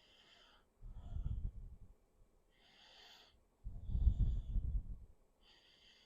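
A person breathing close to the microphone, about one breath every three seconds: a short nasal inhale followed by an exhale that puffs on the mic as a low rumble.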